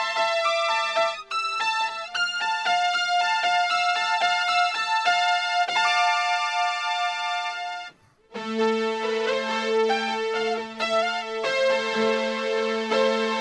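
Electric guitar played through a Boss SY-200 synthesizer pedal on its pad variation 9, with the dry signal off: sustained, keyboard-like synth chords with repeated picked attacks. About eight seconds in the sound briefly drops out, then a new, lower chord rings on.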